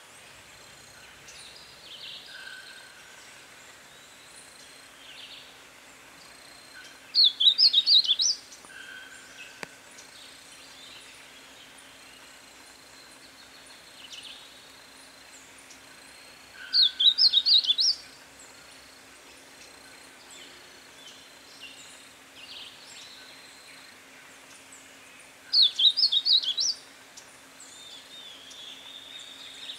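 A negrinho-do-mato singing three short, fast phrases of high notes, each about a second long and about nine seconds apart. Fainter calls from other birds, a steady low hum and, near the end, an insect-like buzz sound behind it.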